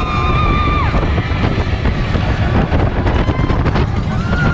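Incredicoaster train rolling along its track: a steady low rumble with wind buffeting the microphone and a patter of wheel clicks about halfway through. A long held shout rings out at the start and another near the end.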